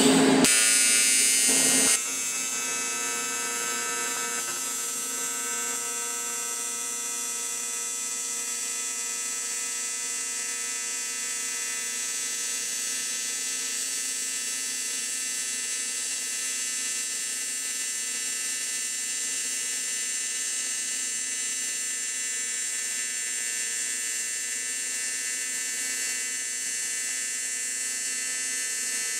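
AC TIG welding arc on aluminum at about 148 amps, running an inside corner weld: a steady high-pitched electrical buzz. It is louder for the first two seconds, then holds even.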